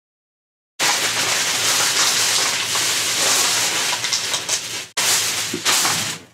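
Loud, even rushing noise with no tone or rhythm, like close rustling or hiss. It starts abruptly about a second in, breaks off for a moment near five seconds, and cuts off suddenly at the end.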